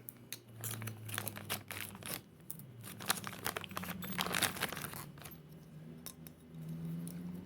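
Plastic packaging being cut open and handled: irregular crinkling and tearing rustles with small clicks.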